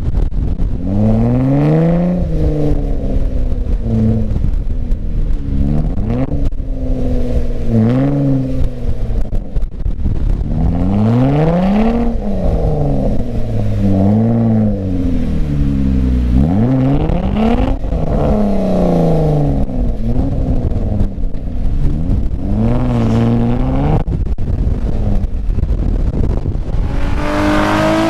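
Jeep Wrangler engine revved up and let fall again and again as the Jeep claws its way up a steep, loose sand ridge.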